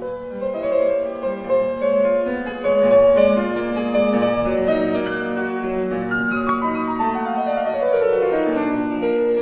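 Instrumental piano music with sustained, overlapping notes and no singing.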